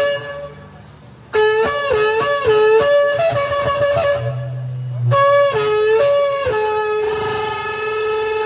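A shofar blown in blasts. A held note cuts off at the start, and after a pause of about a second comes a run of short broken notes jumping between pitches. Another short burst comes about five seconds in, then a long held note from about six and a half seconds that wavers near the end.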